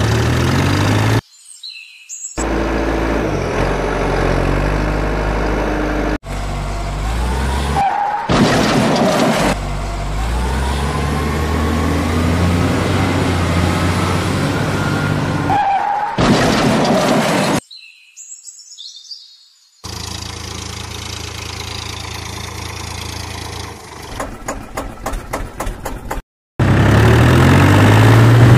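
Heavy-vehicle engine sound effects in a string of short clips, cut off abruptly with brief gaps between them. The engines idle and rev, with a whine that rises in pitch midway and a rapid ticking near the end.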